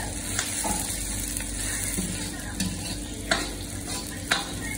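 Sliced onions sizzling in hot oil in a cast-iron karahi while they are stirred with a metal ladle. The steady frying hiss is broken by a few sharp knocks of the ladle against the pan. The onions are being browned as the base of a curry.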